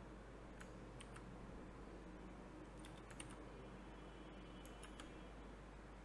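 A few faint computer keyboard keystrokes and clicks in small clusters over a steady low hum, as code is edited.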